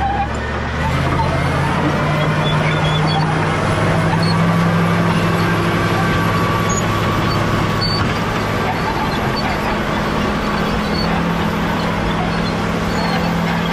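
Caterpillar D7G bulldozer's diesel engine running under load. Its revs rise about a second in, then hold steady.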